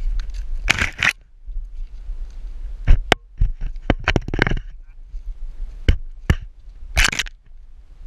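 A bull terrier puppy playing with a GoPro close to its microphone: irregular sharp knocks and crunching scrapes against the camera, with three short, rough rushes of noise.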